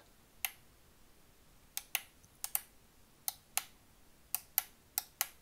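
Metal toggle switches on a Jumper T8SG Plus radio transmitter being flicked through their positions: about eleven sharp clicks, several in quick pairs.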